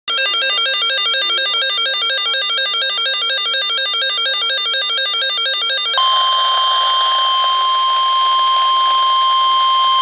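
RadioShack weather radio sounding its built-in alert alarm, a rapid repeating electronic warble, for about six seconds. It then switches abruptly to the live NOAA Weather Radio audio, which carries the steady 1050 Hz warning alarm tone that signals a warning is about to be read.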